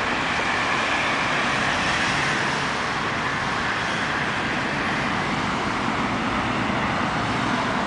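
Steady road traffic noise from cars driving along a nearby multi-lane road.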